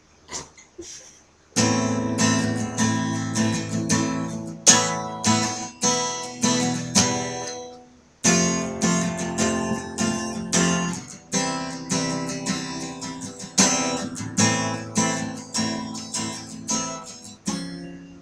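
Acoustic guitar played in struck chords, with a couple of soft plucks first and a short break about eight seconds in before the playing resumes.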